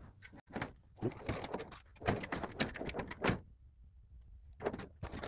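Metal tool chest drawers being pulled open and pushed shut on their slides: a run of short sliding rattles and clacks, with a pause shortly before one last one near the end.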